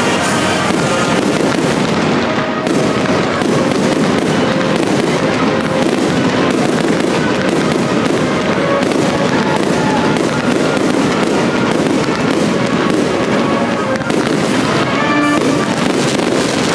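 Fireworks display: aerial shells bursting and crackling in a dense, continuous barrage, with music playing along.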